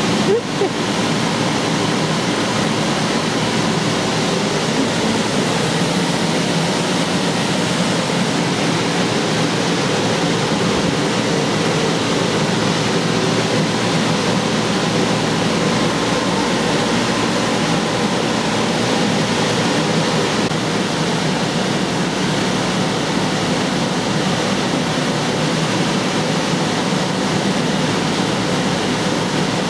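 Steady, loud rushing of the electric blower fans that keep inflatable bounce houses inflated, with a faint constant hum underneath.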